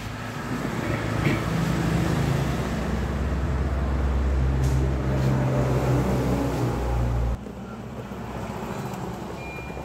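An engine running with a low rumble that drifts a little in pitch, then cuts off suddenly about seven seconds in.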